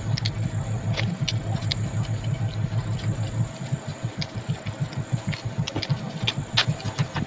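An engine idling steadily with a fast, even low throb, with a few light clicks over it.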